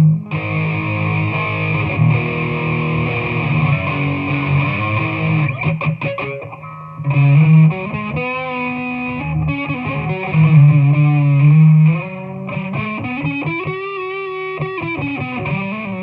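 Squier Stratocaster electric guitar played through a Peavey Valve King valve amp and B52 cabinet: held notes and chords, with notes bent up and down in the second half.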